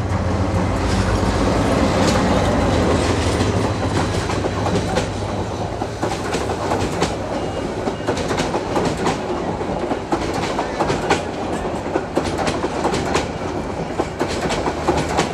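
A train rolling past: a steady heavy rumble with the clickety-clack of its wheels over the rail joints.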